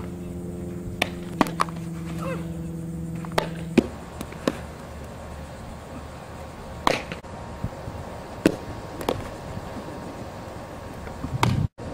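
Softball catcher's drills: a string of sharp pops as softballs hit the catcher's leather mitt and gear, unevenly spaced across the clip. A steady hum sounds under the first few seconds and then stops.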